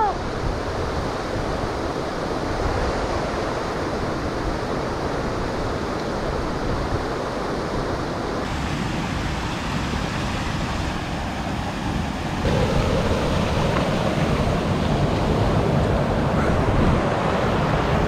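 Small waterfall cascading over rocks and splashing into a pool: steady rushing water that shifts suddenly twice and turns louder about two-thirds of the way through.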